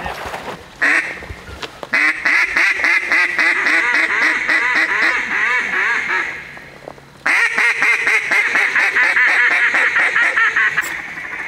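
A hunter blowing a mallard duck call: a single note about a second in, then a long run of rapid quacking notes, a short pause, and a second long run of rapid notes.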